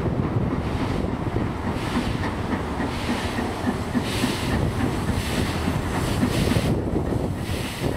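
LMS Princess Coronation Class four-cylinder Pacific steam locomotive 6233 'Duchess of Sutherland' running slowly past, with a heavy rumble. From about three seconds in, steam hisses in a slow rhythm. Wind noise on the microphone runs under it all.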